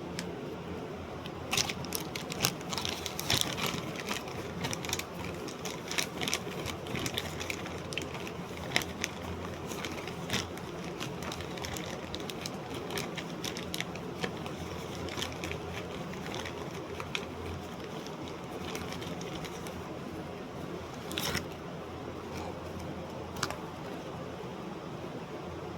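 Irregular sharp clicks and taps, frequent in the first ten seconds and sparser after, over a steady low hum.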